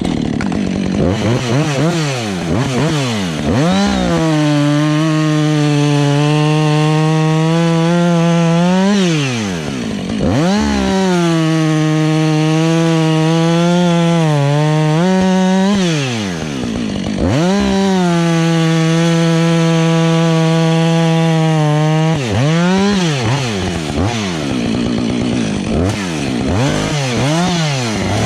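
Husqvarna 555 two-stroke chainsaw cutting up a felled dead conifer. The engine revs up and holds at full throttle through three cuts of about five seconds each, falling back between them, then gives a few quick throttle blips near the end.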